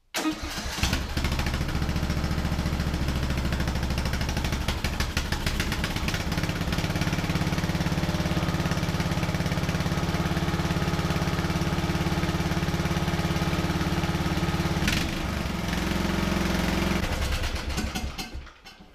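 An 18 hp Briggs & Stratton Intek lawn tractor engine starting after a very short crank and running steadily, on its first start since a new head gasket went in. About fifteen seconds in, its note changes, then it winds down and stops near the end.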